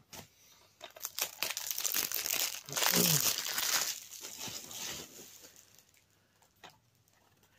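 Plastic DVD packaging crinkling and rustling as it is handled and opened, loudest in the middle, then a couple of light clicks near the end.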